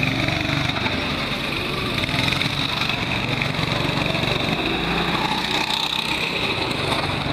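Go-kart engine running steadily as the kart drives around the track.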